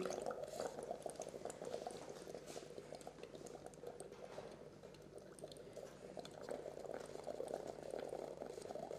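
Breath blown through a glass tube into limewater in a test tube, making faint, continuous fine bubbling. The exhaled carbon dioxide is being bubbled through the limewater to test for it.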